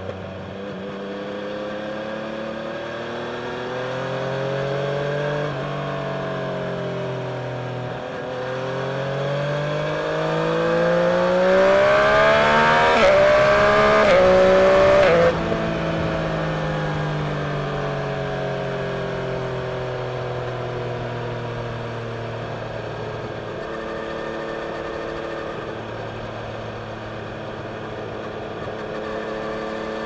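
Yamaha Tracer 900's inline-three engine through a Scorpion aftermarket exhaust, riding under load. The revs climb, dip briefly about five seconds in, then climb again to their loudest between about twelve and fifteen seconds, with quick dips in pitch there like quickshifter upshifts. The note then drops sharply as the throttle closes, falls away steadily and settles to an even cruise.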